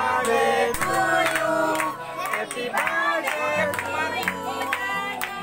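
Music playing while a group of people, children among them, sing and call out together.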